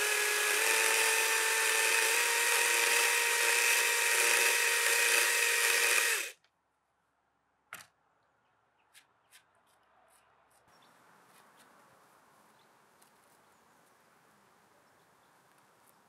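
Electric drill running steadily at high speed, its motor whine stepping up slightly in pitch about half a second in. The sound cuts off abruptly after about six seconds. A click and a few faint ticks follow over quiet background ambience.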